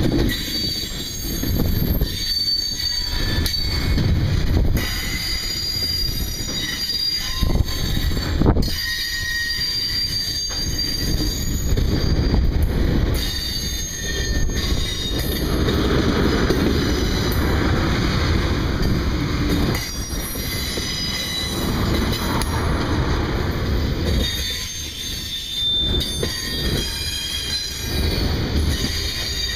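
Freight cars rolling past at close range: a steady rumble of steel wheels on rail, occasional clanks, and thin, intermittent high-pitched wheel squeal.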